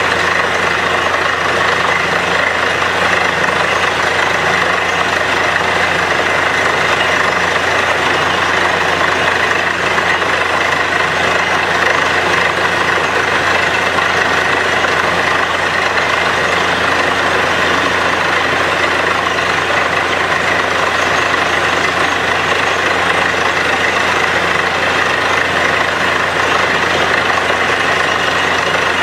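Truck-mounted borewell drilling rig running steadily while drilling. Its engine and air compressor make a loud, even noise, with a continuous hiss as wet cuttings blow out of the borehole.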